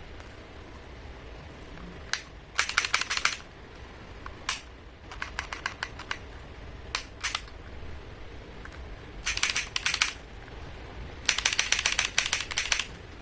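Plastic clicking from handling a Tokyo Marui Mk23 spring airsoft pistol. There are a few single sharp clicks and four quick runs of clicks, each under a second long, the last and longest near the end.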